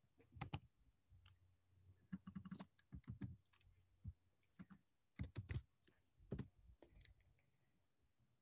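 Faint typing and clicking on a computer keyboard, in short irregular clusters of keystrokes with gaps between them.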